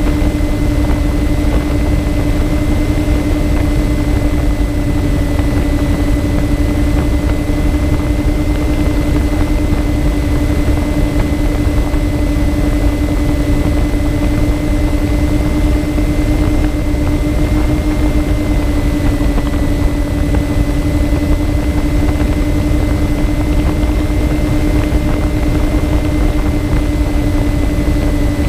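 The twin electric motors and propellers of a MyTwinDream FPV plane running at a steady cruise throttle, heard from the onboard camera as a constant hum over a low rush of wind.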